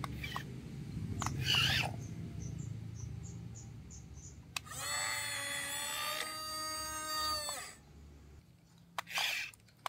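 Small electric motor of a toy RC excavator whirring low and fading over the first few seconds. About five seconds in, a loud pitched animal-like call holds steady for about three seconds, with short noisy bursts near the end.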